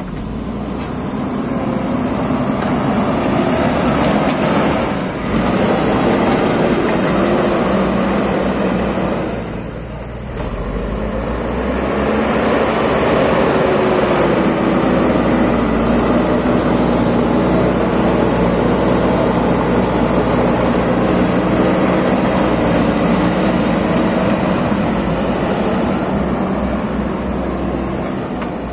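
JCB 3DX backhoe loader's diesel engine working under load as the front bucket pushes soil, its revs shifting up and down. The sound eases off briefly twice, about five and ten seconds in, then runs steady and loud.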